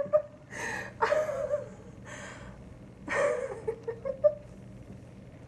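A man gasps and lets out pained, breathy cries several times over about four seconds, the reaction to a hot-wax strip being ripped from his leg hair.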